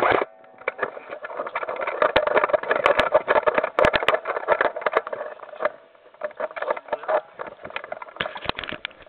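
Airsoft electric guns firing in bursts: a motor-like buzz with many rapid sharp pops, easing off briefly near the middle before picking up again.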